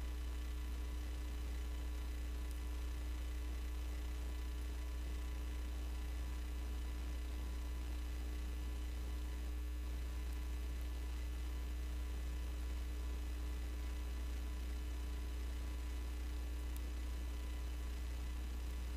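Steady low electrical mains hum with faint hiss, unchanging throughout, with a few thin steady tones above it.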